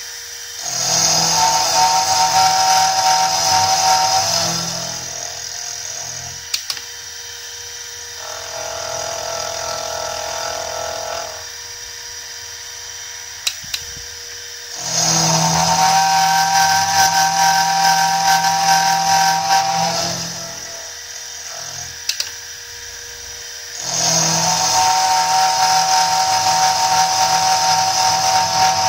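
Milling machine end mill cutting the metal spike of a warhammer head: three loud cutting passes of several seconds each with a steady high whine, a quieter pass in between, and the machine humming steadily in the gaps. A few short sharp clicks come between passes.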